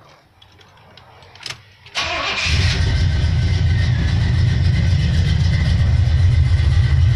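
Oldsmobile 350 V8 with a Quadrajet carburetor cranking briefly and starting about two seconds in, after a couple of small clicks, then running at a loud, steady idle while it is still warming up.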